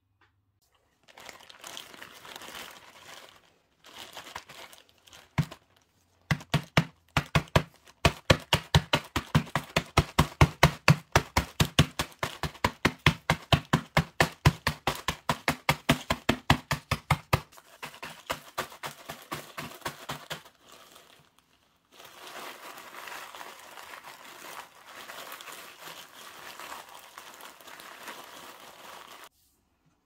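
Plastic biscuit packaging crinkling and rustling, then a long run of rapid, even knocks, about four a second, as dry Maria-type biscuits in a plastic bag are pounded and crushed, slowing to scattered blows. Near the end comes more crinkling of the bag.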